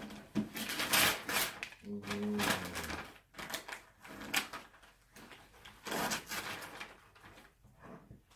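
Wrapping paper and tissue paper rustling and crinkling in repeated bursts as a present is unwrapped and a gift box is handled.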